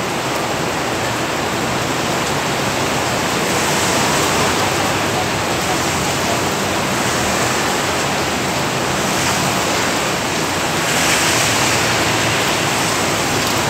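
Heavy rain pouring down as a steady, dense rushing hiss.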